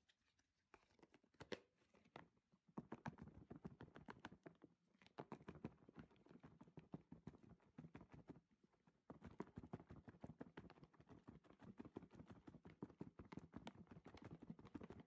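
Faint, rapid and irregular tapping and rattling of food being mixed in a kitchen container, with a short pause about two-thirds of the way through.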